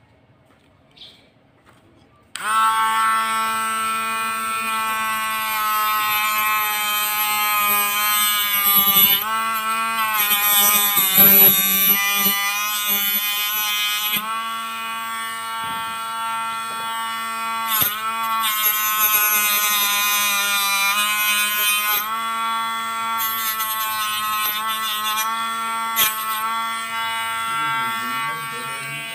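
Small handheld mini electric drill running with a steady whine, switched on about two seconds in. Its pitch dips briefly a few times around the middle as the bit drills into the stiff paper part, then steadies until it stops at the very end.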